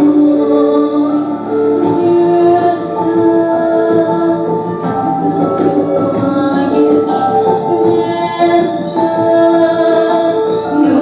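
Music with singing: voices hold slow, sustained notes that change pitch every second or so.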